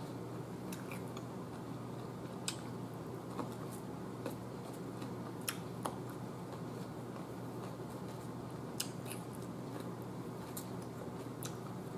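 Raw cucumber slices being chewed with the mouth closed, with wooden chopsticks picking slices off the plate: sparse, irregular sharp clicks and crunches over a steady low hum.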